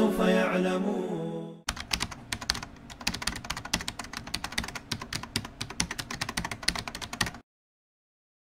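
A sung nasheed fades out over the first second and a half, then a fast run of computer-keyboard typing clicks goes on for about six seconds and cuts off suddenly.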